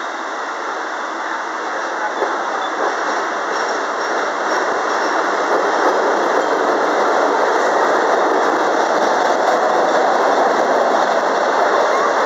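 MBTA Red Line subway train pulling out along the platform, the running noise of its wheels and motors growing steadily louder as it gathers speed.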